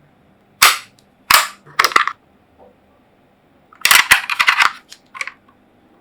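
Mechanical keyboard keys of an AJAZZ AK871 being struck hard: a few single sharp clacks, then a quick run of several clacks about four seconds in and one more near the end.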